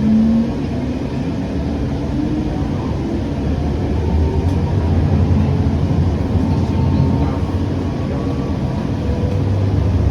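Siemens S700 light rail car running between stops, heard from inside the car. There is a steady low rumble with faint motor tones that drift up and down in pitch.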